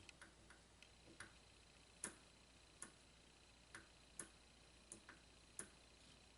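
Near silence broken by faint, sharp, irregularly spaced clicks, about a dozen over six seconds.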